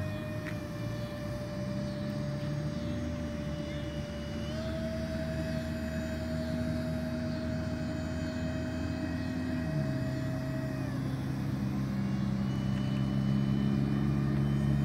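Twin electric ducted fans of a radio-controlled Airbus A330 model in flight: a steady whine in several tones whose pitch steps down and up a few times with throttle changes, slowly getting louder.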